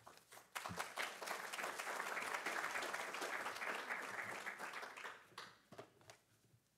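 Audience applauding: many people clapping at once, starting about half a second in and dying away near the end.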